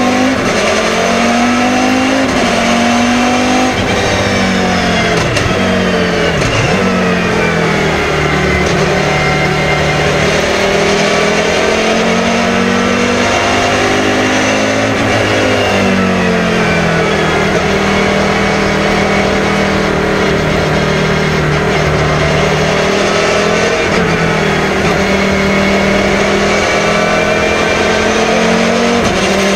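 Volvo 850 BTCC race car's 2-litre five-cylinder engine driven hard on track. Its pitch climbs through the gears and drops as it slows for corners, about four seconds in and again around fifteen seconds, then holds high revs near the end.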